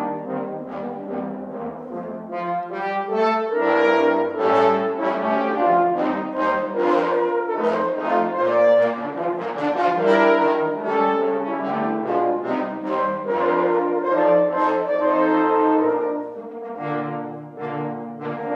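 Six French horns playing a piece together in harmony, several notes sounding at once as the parts move from chord to chord.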